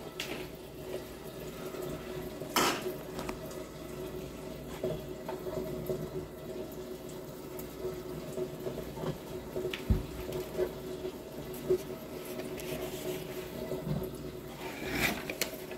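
Great Northern GNP-800 popcorn machine heating its kettle before the corn starts popping: the kettle's stirrer motor hums steadily while the hot coconut oil sizzles around the unpopped kernels, with a few sharp clicks, the loudest about two and a half seconds in and near the end.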